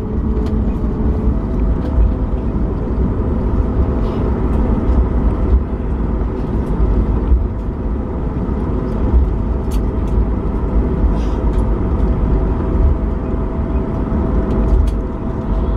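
Cabin rumble of a Boeing 737 MAX 8 slowing down on the runway after touchdown: a loud, steady, low roar of engines and wheels on the runway, joined about a second in by a faint steady whine.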